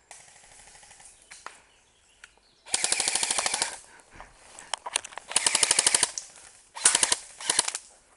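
Airsoft rifle firing on full auto in four bursts, about fourteen shots a second: two bursts of about a second, then two short ones close together near the end.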